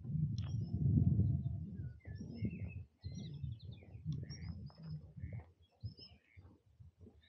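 Several songbirds chirping and singing in short, overlapping phrases, over a low rumbling noise that is loudest about a second in.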